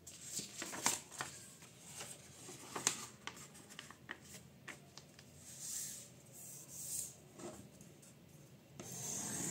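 A sheet of printer paper being handled and folded by hand: crisp crackles and rustling as it is lifted, slid and pressed flat, with a run of sharp crackles in the first few seconds and a longer rustle near the end.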